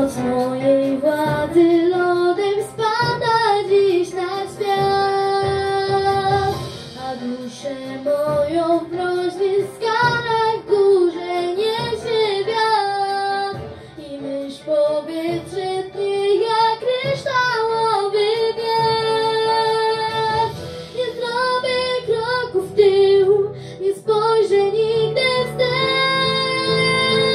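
A girl singing a Polish song solo into a handheld microphone over an instrumental backing track, with several long held notes.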